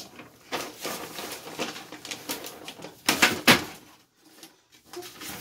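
Newspaper rustling and crinkling as it is handled and spread out, in irregular crackles, loudest about three seconds in.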